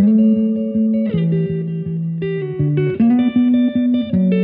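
Background music: guitar over a bass line with a steady quick beat, the chords changing about every second.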